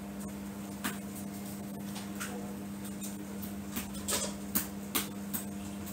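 Steady low hum with a handful of light, sharp clicks and taps, coming more often in the second half.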